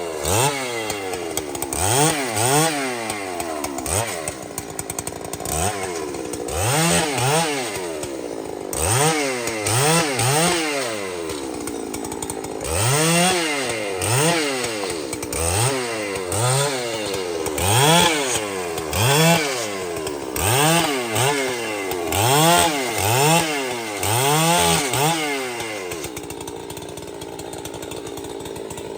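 Large two-stroke chainsaw revved up and down over and over, each rev rising and falling quickly. About three seconds before the end it drops back to a steady idle.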